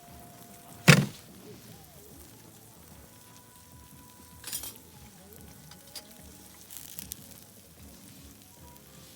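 Food sizzling quietly in a pan at a camp cookout. There is one sharp knock about a second in, a softer clatter a few seconds later and a few light clicks.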